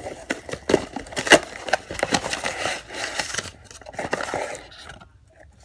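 Parcel packaging torn open and handled by hand: dense crinkling and crackling with sharp taps and scrapes, dying down about four and a half seconds in.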